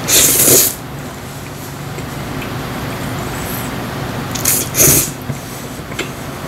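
A person slurping spicy mixed noodles off chopsticks. There is one long loud slurp at the start and two shorter slurps about four and a half seconds in, over a steady low hum.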